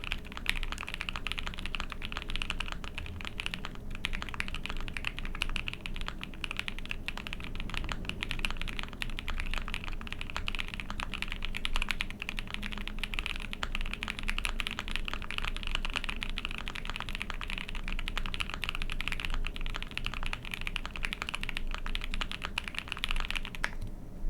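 Fast, continuous typing on a custom mechanical keyboard: an Ai03 Vega with a POM plate, lubed Banana Split switches with JX stems and GMK keycaps, giving a dense run of keystrokes that stops near the end.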